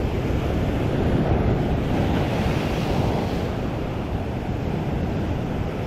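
Heavy sea surf breaking and churning over rocks, a continuous rushing roar of water, mixed with wind buffeting the microphone.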